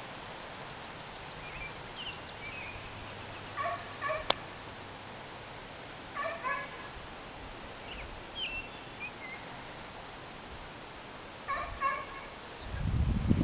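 Three short bursts of animal calls a few seconds apart, each a quick run of two or three pitched notes, with faint high bird chirps in between and a single sharp click about four seconds in. Wind buffets the microphone near the end.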